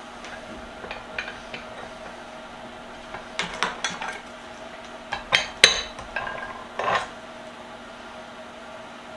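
Metal parts of a bench vise clinking and knocking together as it is being reassembled by hand: scattered light clicks at first, then a cluster of sharper clanks in the middle, a few ringing briefly.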